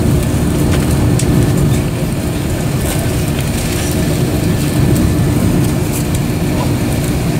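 Steady airliner cabin noise inside an Airbus A330-200: a constant low rumble with a steady hum over it.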